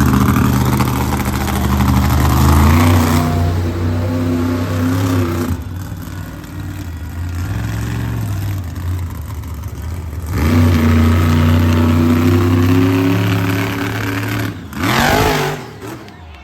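Monster truck engine revving hard, easing back to a lower run from about five to ten seconds in, then revving up again, with a short sharp rev near the end.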